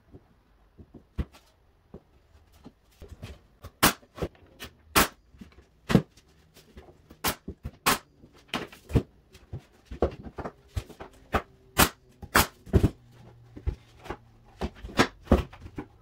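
Pneumatic nailer firing nails into the wooden parts of a birdhouse box: many sharp clacks, irregularly spaced about a second apart, mixed with wood pieces and clamps knocking on the bench.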